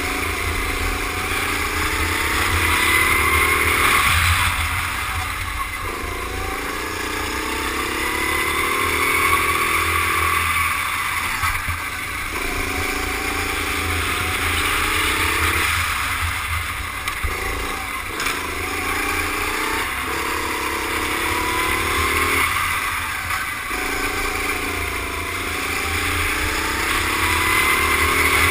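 Rental go-kart engine heard onboard, revving up along each straight and cutting back as the driver lifts off for the corners, about six climbs in all.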